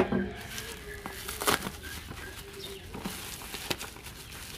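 Plastic bubble mailer and wrapping crinkling and rustling as it is cut open with scissors and the packet is pulled out, with a few sharp crackles, the strongest at the start and about a second and a half in.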